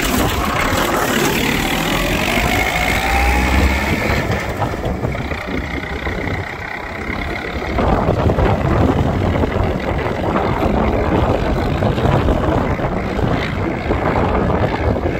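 IMT 558 tractor's diesel engine running as it pulls a tillage implement across the field. From about 8 seconds in, wind buffeting the microphone covers the engine as the tractor moves away.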